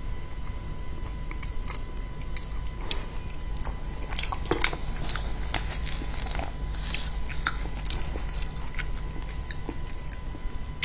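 Close-miked chewing and biting of a mouthful of seafood, with many small wet clicks from the mouth, busiest around the middle.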